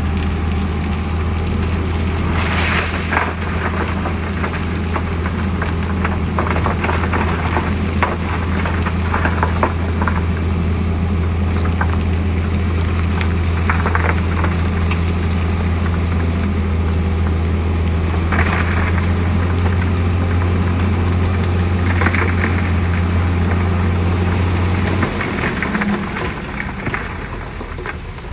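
Heavy diesel engine of earthmoving machinery running steadily at one pitch, with scattered clanks and scrapes. The engine drone drops away a few seconds before the end.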